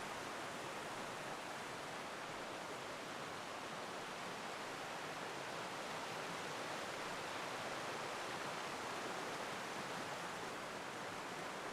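Steady rushing of a fast forest stream tumbling over small waterfalls, an even hiss with no change in level.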